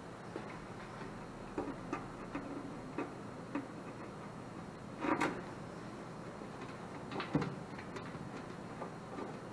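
Scattered clicks, taps and knocks of hands handling parts and wiring inside a sheet-metal air handler cabinet, with a louder clunk about five seconds in and another at about seven and a half.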